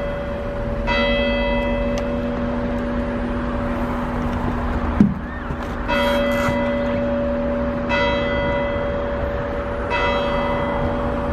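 A single church bell tolling slowly, struck four times at about two-second intervals with a longer pause in the middle, its low hum ringing on between strokes. A sharp knock about five seconds in is the loudest sound.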